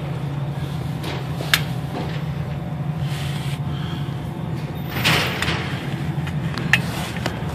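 Oil drain pan being moved and set down on a concrete shop floor: a few short knocks and scrapes, the loudest about five seconds in, over a steady low hum.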